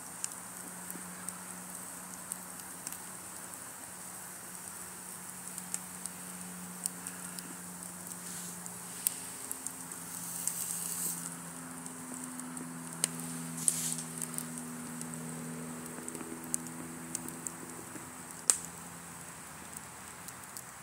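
Wood fire crackling under a grill grate, with scattered sharp pops, a few of them louder, over a steady faint hiss.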